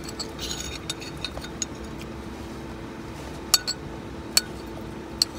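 Metal spoon clinking and scraping against a clear plastic bowl while eating, with a few sharper clicks in the second half.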